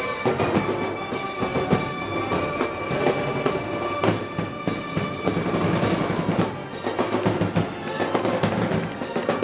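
Moros y Cristianos festival band music: drums beating under long held notes from the wind instruments.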